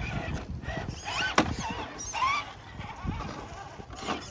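Small electric motor and gears of a scale RC rock-crawler truck whining, the pitch rising and falling as the throttle changes, with a sharp click about a second and a half in.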